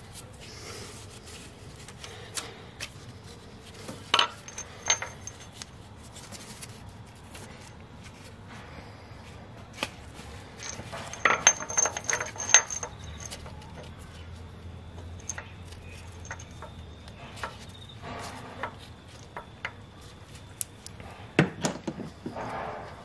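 Metal clinks and light rattling from a Nissan QG18DE exhaust camshaft sprocket and its timing chain being handled and seated by hand, coming in a few short clusters of sharp clicks.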